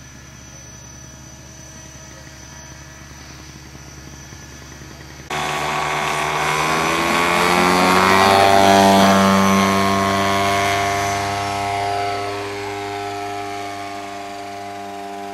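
Radio-controlled Pitts Special biplane's engine and propeller. A steady, quieter engine note at first, then suddenly much louder at full power about five seconds in for the takeoff run. The pitch then drops as the plane passes and climbs away, fading slowly.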